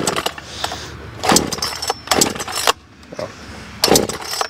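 Pull-starter cord of a two-stroke chainsaw yanked about four times, roughly a second apart, each pull a short whirring rasp as the engine is cranked without yet running.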